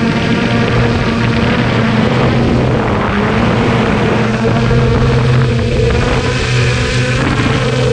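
Traxxas Aton quadcopter's motors and propellers humming steadily, picked up by the GoPro mounted on the drone itself; the pitch shifts slightly in the second half as the drone changes speed.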